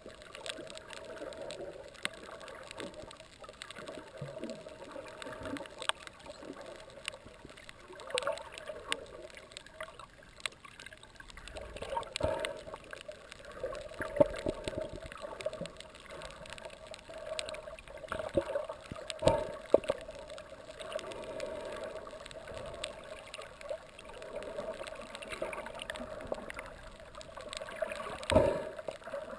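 Underwater sound heard through a camera housing: a steady rush of moving water with scattered sharp clicks, and a few louder knocks about twelve, fourteen, nineteen and twenty-eight seconds in.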